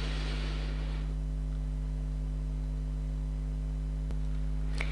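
Steady low electrical hum, mains hum in the recording, with a faint hiss in the first second and a small click near the end.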